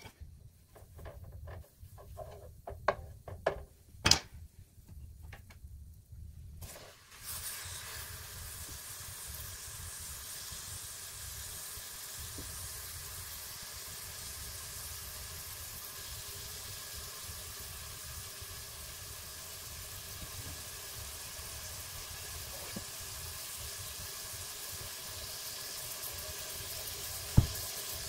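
Thin beef steak sizzling in melted butter in a ceramic nonstick frying pan. The steady sizzle starts suddenly about seven seconds in, after a few sharp clicks and knocks. There is a single thump near the end.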